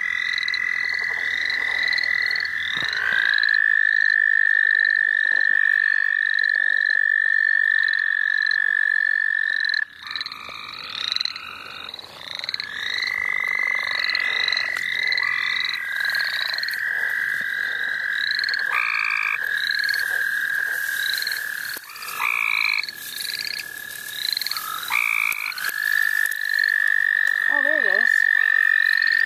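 A chorus of frogs calling: a loud, steady trill held for several seconds at a time and breaking off briefly a few times, with short, quickly repeated chirps over it.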